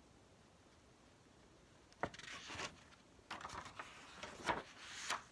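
Paper pages of a picture book being turned and handled: quiet at first, then a sudden rustle about two seconds in, followed by further paper rustling with a sharp flick near the middle.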